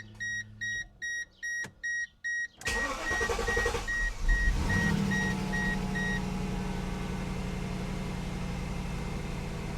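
Mercedes W210 E420's V8 cranked and started for the first time after an alternator replacement: it catches about three seconds in and settles into a steady idle. A dashboard warning chime beeps about three times a second until the engine is running, then stops.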